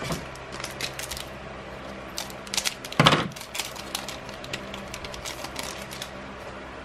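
Crinkling and clicking of a foil Magic: The Gathering booster-pack wrapper and cards being handled, with one louder crackle about three seconds in.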